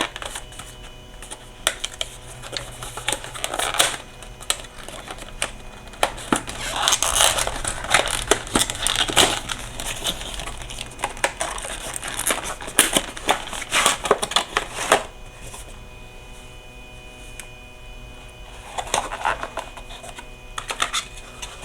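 Hands opening a product box and pulling out its contents: crinkling and rustling of packaging with many small clicks and taps, busiest for about the first fifteen seconds, then quieter with a little more rustling near the end.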